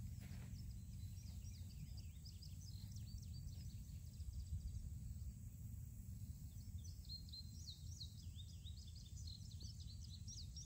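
Faint outdoor ambience: many small birds chirping in short, repeated high notes over a steady low rumble.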